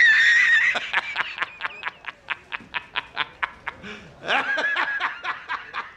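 A high-pitched snickering, cackling laugh. It opens with a squeal, goes on as a quick run of short wheezy pulses at about five a second, and squeals again a little past four seconds in.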